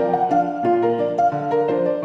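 Instrumental background music: a melody of short, clear notes, several a second, over lower notes.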